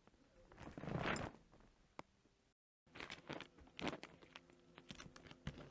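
Rustling and handling noises: a swelling rustle about a second in, a brief cut to silence, then a quick run of clicks and taps.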